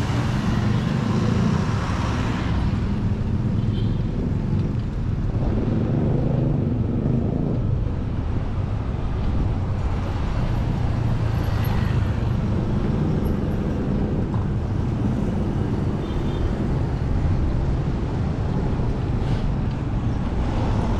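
Street traffic noise: motor vehicles running and passing, a steady low rumble.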